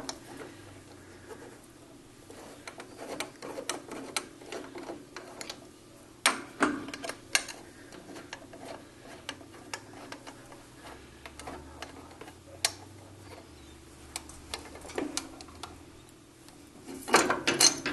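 Irregular metal clicks, taps and knocks from hands working the lathe carriage and its parts, with a few louder clanks about six to seven seconds in and again near the end.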